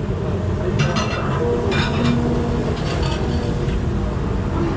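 Steady low rumble of ramen-shop background noise, with a few brief clinks of the spoon and chopsticks against the bowl about one and two seconds in.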